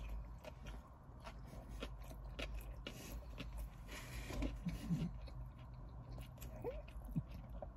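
A person biting into a Whopper burger and chewing it, heard as faint wet mouth clicks and smacks, with a couple of brief closed-mouth hums about halfway through.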